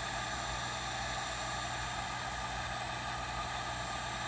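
Heat gun running steadily, its fan blowing with a steady hiss and motor hum, as it shrinks glue-lined heat-shrink tubing over a soldered wire splice.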